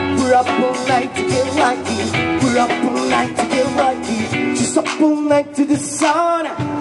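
Live rock band playing: electric guitar, bass, drums and keyboard, with a sung vocal line toward the end.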